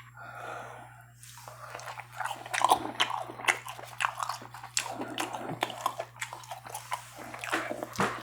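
A person biting and chewing food close to the microphone: a run of quick, crunchy mouth clicks that starts about a second and a half in.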